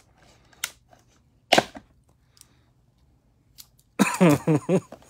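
Plastic shrink wrap on a trading-card box being cut and poked at with a dull knife: a sharp click, then a louder crack about a second and a half in, with faint ticks after. A short, loud burst of voice comes near the end.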